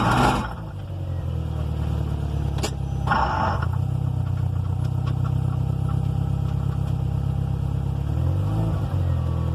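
2005 Subaru WRX STI engine running steadily at a low, even speed. There is a short loud noise right at the start, a click and a brief harsher burst about three seconds in, and a slight change in engine pitch near the end.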